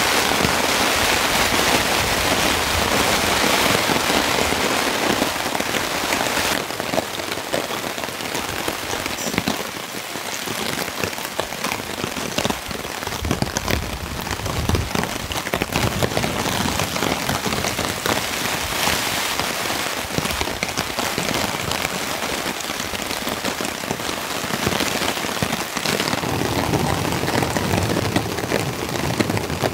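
Heavy rain falling steadily and pattering on a nylon camping tarp overhead, a dense hiss full of individual drop ticks.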